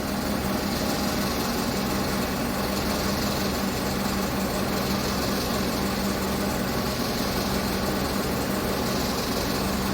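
2015 Chevrolet Tahoe V8 idling steadily with a misfire: the misfire has moved from cylinder one to cylinder three with the swapped spark plug, so the plug is the cause.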